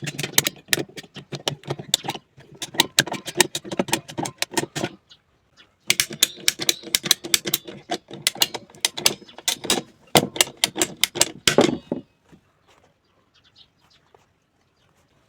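Quick, irregular clicking and tapping of hard objects in two long runs, broken by a short pause about five seconds in and stopping about twelve seconds in.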